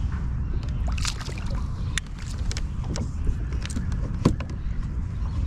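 Water splashing as a hooked mulloway thrashes at the surface beside a kayak, with several sharp knocks and clicks, over a steady low rumble of wind on the microphone.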